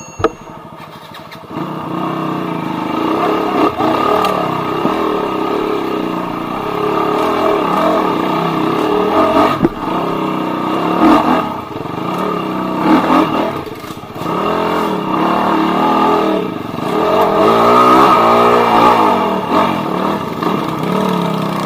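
Dirt bike engine revved hard and unevenly, its pitch repeatedly rising and falling as the throttle is worked, becoming loud about a second and a half in.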